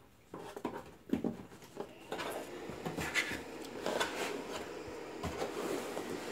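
Knocks, clicks and rubbing as a metal 48-port network switch is shifted about in its cardboard box. From about two seconds in, a steady whir joins and runs on: the Ubiquiti EdgeSwitch's cooling fans starting as it powers up and boots.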